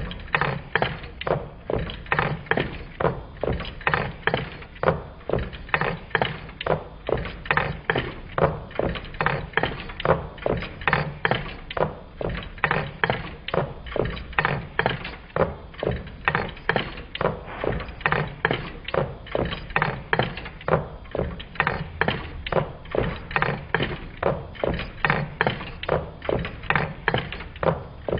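Twin-cylinder Meccano Stirling engine running, its displacers landing at each end of their travel to give a steady rhythm of knocks, about two a second.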